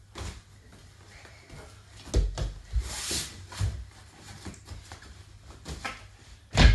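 Knocks and thumps from children using a home gymnastics bar: hands grabbing the bar, its frame rattling, and feet and bodies meeting the mat. A cluster of thumps comes a couple of seconds in, and the loudest thump comes just before the end as a girl swings over the bar.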